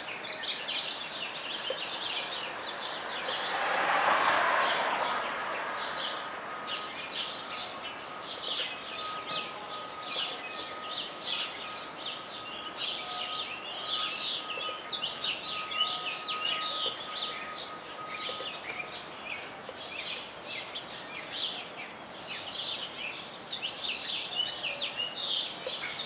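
Small birds chirping busily and without a break, many short high calls a second. A broad whoosh swells and fades around four seconds in, and a faint steady high tone runs through the middle.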